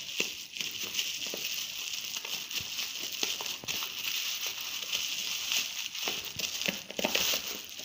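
Bubble wrap and plastic wrapping crinkling as hands handle and peel it off a small package, with scattered sharp crackles throughout.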